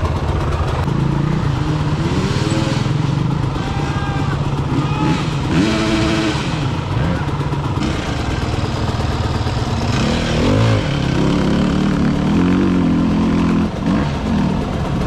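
Enduro motorcycle engines running, their pitch rising and falling as they are revved, with voices in the background.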